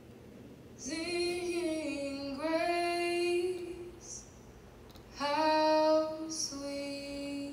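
A woman singing a slow melody, holding four long notes with a short pause about halfway through.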